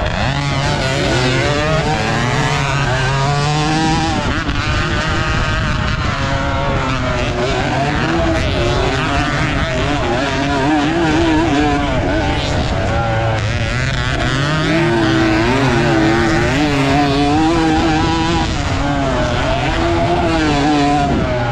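Motocross dirt bike engine heard on board, revving up and falling off again and again as the rider accelerates, shifts and slows through the track.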